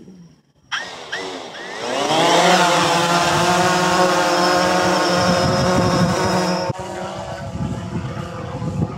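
DJI Phantom 3 Standard quadcopter's four motors and propellers spinning up with a rising whine as it lifts off, then a steady, loud buzz while it climbs. Near the end the sound drops abruptly to a quieter, unsteady buzz.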